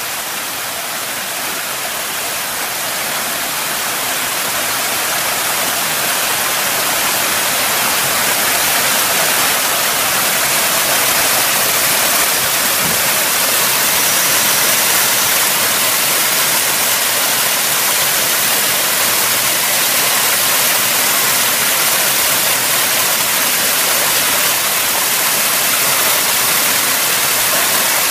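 Small mountain waterfall splashing over granite into a rock pool: a steady rush of falling water that grows a little louder over the first several seconds, then holds steady.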